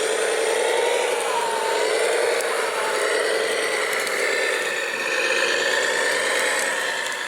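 Radio-controlled model construction vehicle running: a steady whine from its electric drive and gearing whose pitch drifts up and down a little.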